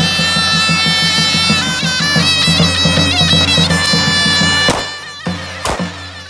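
Zurna playing a shrill, wavering melody over the steady beat of a davul bass drum, cutting off about three-quarters of the way through. Then two pistol shots fired into the air, about a second apart.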